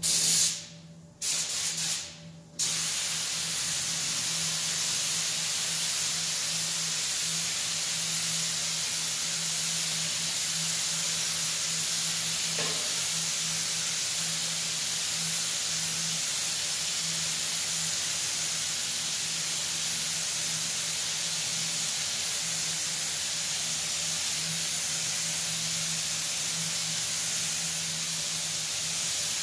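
Compressed-air paint spray gun hissing as it sprays finish onto furniture. It gives three short bursts in the first few seconds, then one long steady spray, with a faint steady hum underneath.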